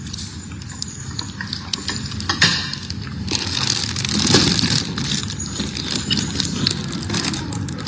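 A person chewing food close to the microphone, with irregular small mouth clicks and smacks.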